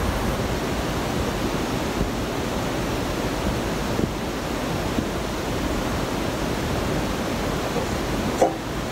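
A steady rushing hiss throughout, with a single short knock near the end.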